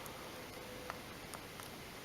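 A few faint, sharp clicks from handling a smartphone's small internal parts during reassembly, about a second in and twice shortly after, over a low steady hiss.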